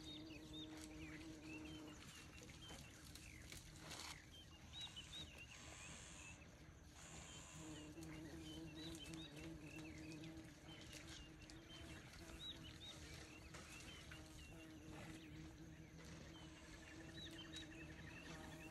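Faint dawn chorus of birds: many short chirps and whistles throughout, with a low steady hum coming and going underneath.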